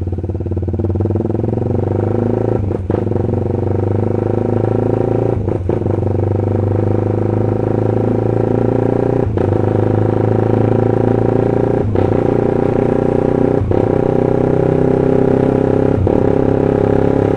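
Honda CB150R's single-cylinder engine running under way while ridden. Its sound cuts out briefly about six times, the quickshifter's ignition cut on each upshift.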